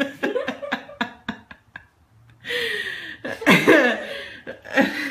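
Quick knocks and scuffling for about two seconds, then loud bursts of laughter.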